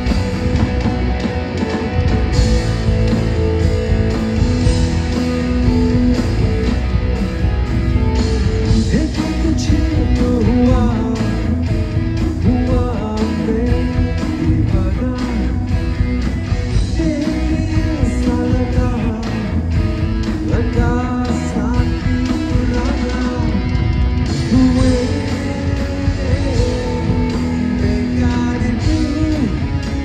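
Live rock band playing through the PA: electric and acoustic guitars, bass guitar and a drum kit. A male singer's voice comes in about nine seconds in.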